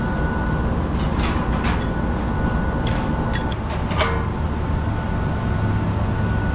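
Steady low hum and rumble of running rooftop air-conditioning equipment, with a few short sharp metallic clicks as a hand tool works the set screws on a condenser fan blade's hub.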